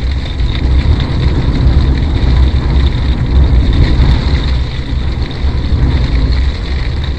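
Strong wind buffeting the motorhome: a heavy, low rumble that rises and falls in irregular gusts.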